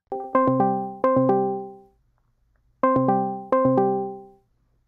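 Discord's outgoing call ringing tone: a short chime of quick piano-like notes that ring out and fade, played twice with a pause between, while the call waits to be answered.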